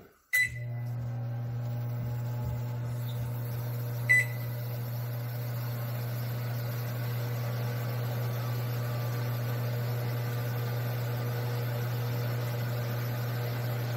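Whirlpool WOC95EC0AS00 microwave combination wall oven, with a newly fitted magnetron, beeps as it is started and runs at 100% power with a steady low hum; a second short beep comes about four seconds in. It keeps running rather than stopping after a few seconds, a sign that the F1E5 fault is cured.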